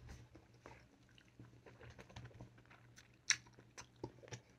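Faint, close-up chewing of a mouthful of rice and julienned potato, with small wet mouth clicks and one sharper click a little over three seconds in, over a low steady hum.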